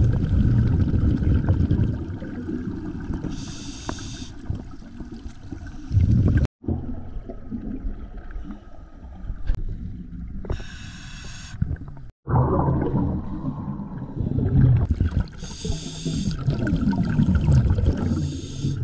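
Scuba diver breathing underwater through a regulator: three hissing inhalations through the demand valve, each followed by a long gurgling rush of exhaled bubbles. The sound cuts out completely for an instant twice.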